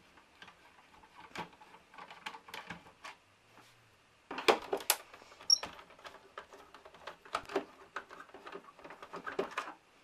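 Screwdriver undoing screws in a set-top box's sheet-metal base: irregular small clicks and scrapes of metal on metal, with a louder cluster of clicks about four and a half seconds in.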